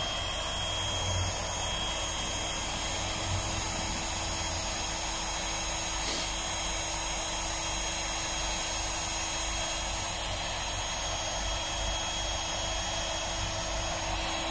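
Small electric air pump running steadily with a high whine, inflating an inflatable boat.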